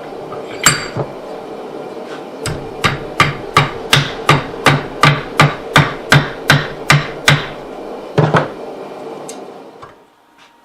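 Hammer blows ringing on steel at the anvil: two blows, then a steady run of about a dozen at roughly three a second, then two more. A steady background rumble dies away near the end.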